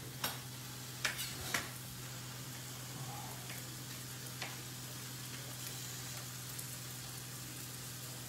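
Chef's knife chopping tomatoes on a plastic chopping board: three sharp taps in the first second and a half, then two fainter ones a few seconds in, over a steady low hum and faint hiss.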